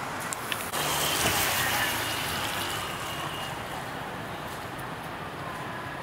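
Outdoor city ambience: a steady background hum of the surroundings. Under a second in, a sudden hissing whoosh swells up and fades away over the next two seconds or so.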